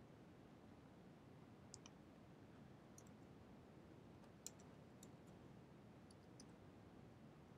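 A few faint, scattered clicks of computer keys, about seven in all, the loudest about four and a half seconds in, over near-silent room tone.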